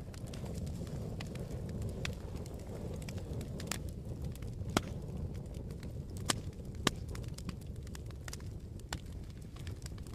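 Wood fire burning in a fireplace: a steady low rush of flames with irregular sharp crackles and pops, roughly one a second.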